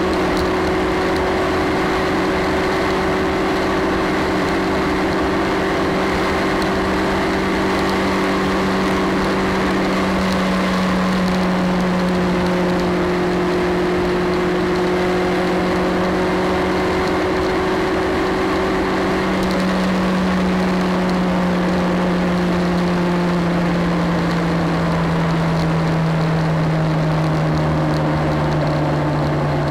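Motorcycle engine running steadily at cruising speed on the open road, mixed with wind and tyre noise. The engine note falls gradually over the last third.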